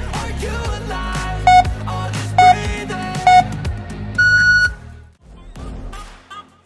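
Interval-timer countdown: three short beeps about a second apart, then one longer, higher beep marking the switch between work and rest. Background pop music plays underneath and drops much quieter just after the long beep.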